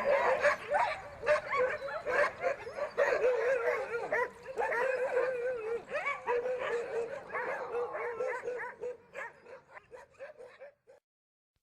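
A pack of Greenland sled dogs whining, yipping and howling together in a chorus of many overlapping wavering voices, fading out near the end.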